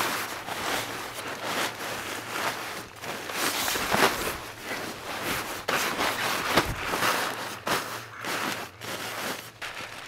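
Nylon sleeping bag rustling as it is shaken out and spread over an inflated sleeping pad, with irregular swishes and crinkles.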